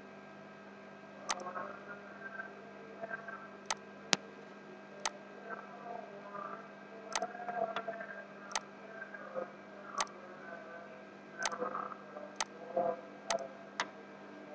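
Computer mouse clicking: about a dozen sharp single clicks at irregular intervals, over a faint steady hum.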